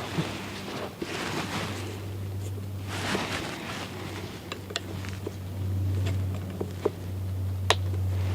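Plastic scraping and handling noises, with several sharp clicks, as the plastic locking tabs of an EVAP canister part are pushed and worked free. A steady low hum runs underneath.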